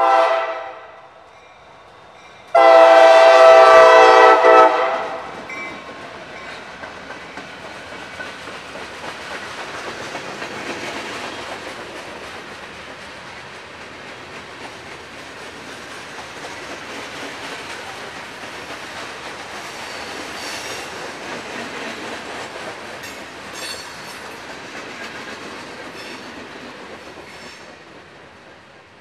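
Diesel locomotive's air horn gives a short blast, then a loud long blast of about two seconds starting some two and a half seconds in. After that a freight train of open hopper cars rolls by steadily, its wheels clacking over rail joints.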